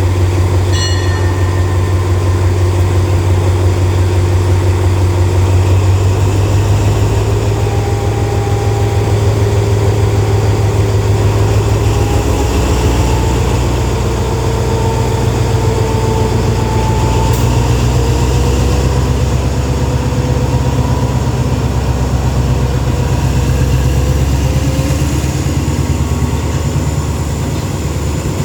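Alsthom diesel-electric locomotive's engine running loud and steady with a deep hum, its tone rising gradually around the middle.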